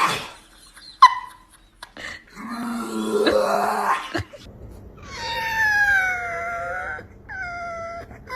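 A dog making strange vocal sounds: a sharp click about a second in, then a rasping, grunting call, then two drawn-out whining, howl-like calls that sag slightly in pitch, the second one shorter.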